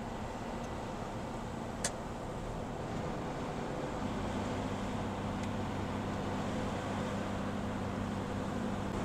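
Engine and road noise inside a moving semi-truck's cab: a steady drone, with the engine hum growing stronger about four seconds in. A single sharp click sounds about two seconds in.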